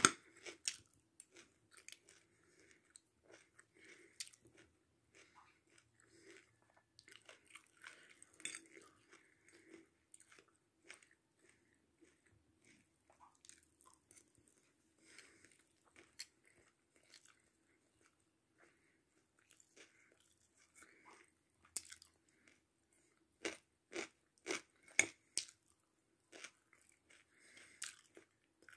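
Faint close-up chewing and crunching as a person eats biryani topped with fried cashew nuts from a spoon, in scattered short clicks and crackles, with a run of sharper clicks in the last several seconds.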